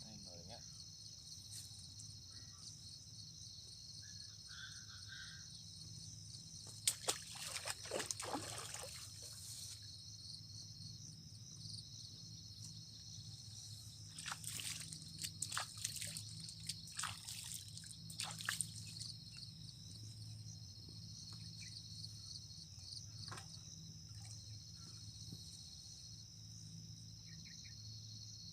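Crickets and other insects chirring steadily in high-pitched bands over a low hum. Short, sharp noises, which may be water sloshing, come in two clusters: a quarter of the way in, and again just past the middle.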